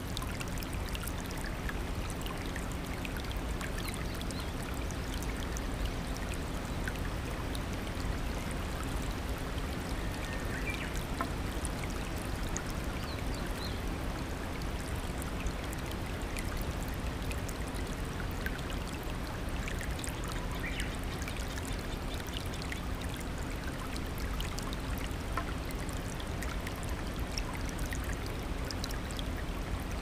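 Shallow rocky mountain stream rushing over stones and small cascades: a steady, even rush of water.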